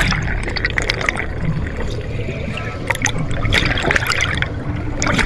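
Underwater bubbling of scuba divers' exhaled air, with many small crackles as the bubbles stream up.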